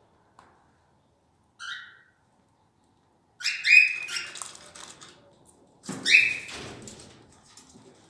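Cockatiels calling with chirps and harsh squawks: a short call about a second and a half in, then loud calls about 3.5 s in and again about 6 s in, fading to quieter calls near the end.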